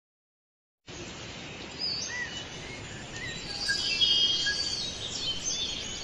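Small caged birds chirping and twittering, many short high calls overlapping over a steady background hiss; the sound begins a little under a second in.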